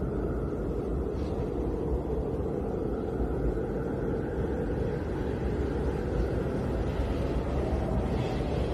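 Snowstorm wind blowing steadily, a low, even rushing noise with no gusts standing out.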